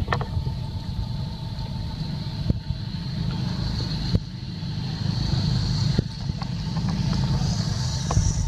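Steady outdoor background rumble with a continuous high hiss over it and a few small clicks scattered through.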